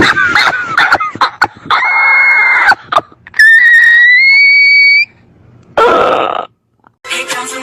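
Spliced meme audio clips: shrill screaming and short sharp noises, then one long high-pitched shriek that slowly rises in pitch. Music begins near the end.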